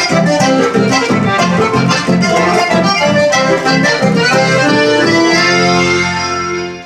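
Accordion-led chamamé, the folk music of Corrientes, played with a steady rhythmic pulse. Near the end it settles onto long held notes and fades down.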